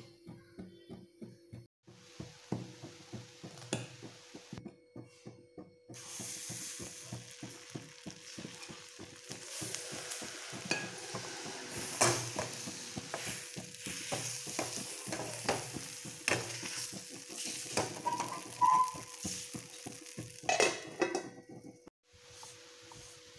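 Appam batter sizzling in a hot nonstick appam pan over a gas flame, the sizzle starting about six seconds in. Sharp metallic knocks and scrapes from the pan being handled, loudest around the middle and again near the end.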